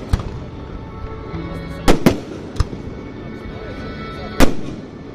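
Fireworks shells bursting close by in sharp bangs: one just after the start, a close pair about two seconds in, a smaller one shortly after, and the loudest about four and a half seconds in.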